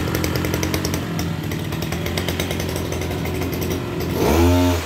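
Ranee 302 30cc brush cutter engine running steadily, then blipped to full throttle about four seconds in, rising sharply in pitch and loudness and dropping back at once. The quick, crisp pickup shows how strongly the engine answers the throttle.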